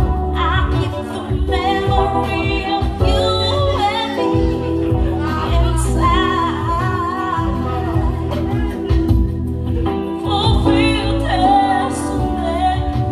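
A woman singing a song into a microphone, backed by an electric keyboard and a plucked string instrument, played live through a small PA system.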